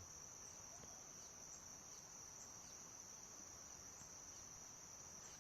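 Faint, steady high-pitched trill of a calling insect, cricket-like, holding one unbroken tone.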